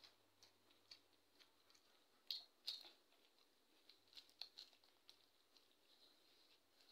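Crisp papad being snapped and crunched while eating: faint crackles, with two sharper cracks a little over two seconds in and a quick run of crackles about four seconds in.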